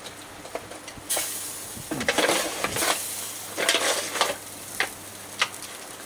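Vegetables sizzling in a foil tray on a hot gas barbecue while being stirred and turned, with several loud scraping stretches and a few sharp clicks of the utensil against the foil. The heat is a little too high, crisping the vegetables too fast.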